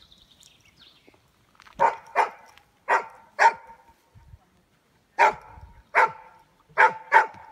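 Search dog barking: about eight sharp barks in loose pairs, starting about two seconds in.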